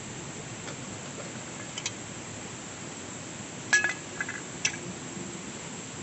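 Metal pot lid clinking against a camping cooking pot as it is taken off and set down: a few faint clicks, then sharp ringing clinks a little past the middle (the loudest), followed by two smaller clinks. A steady hiss runs underneath.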